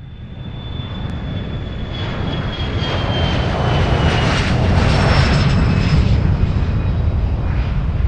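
An airplane flying past, its engine noise swelling to a peak about five seconds in, with a high whine that slowly falls in pitch as it goes by.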